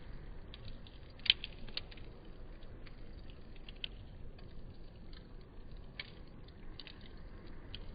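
Wood campfire crackling: scattered sharp pops and ticks over a low, steady rumble, the loudest pop about a second in.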